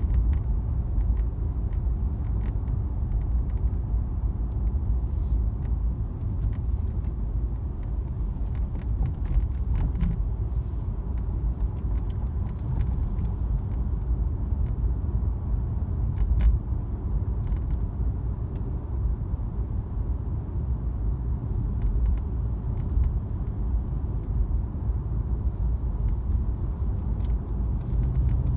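Steady road and drivetrain rumble inside the cabin of a Mercedes-AMG C63 S (W205) while driving, with faint, irregular clicks and rattles from the dashboard screen.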